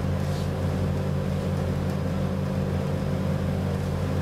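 Steady low mechanical hum with a faint constant higher tone running through it, unchanging throughout.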